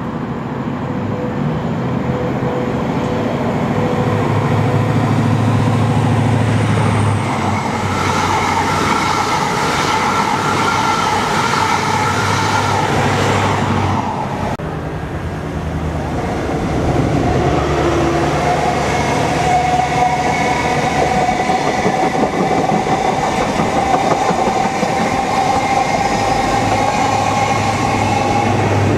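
Two HST (InterCity 125) trains with MTU-engined Class 43 diesel power cars passing one after the other. There is a steady engine drone with a high whine over it and wheels clattering on the rails. The sound drops suddenly about halfway through, then builds again as the second set approaches.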